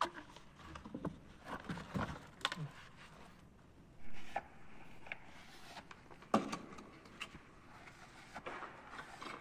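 PVC pipe fittings handled and fitted by hand, with scattered clicks and knocks of plastic and a brief scrape about four seconds in. The sharpest knock comes a little after six seconds.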